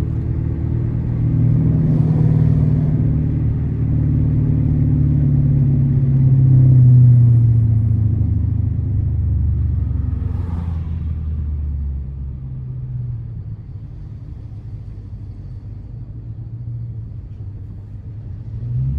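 Dodge R/T's V8 engine running while the car is driven. Its note climbs to a peak about seven seconds in, then eases off and quietens from about twelve seconds.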